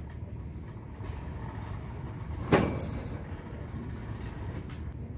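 Steady low background rumble of a large store, with one sharp knock about two and a half seconds in.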